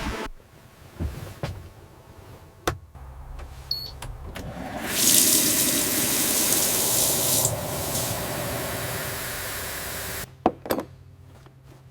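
A few sharp clicks, then a steady low hum with a loud rushing hiss that swells about four seconds in, eases off after a few seconds and stops, followed by two more clicks.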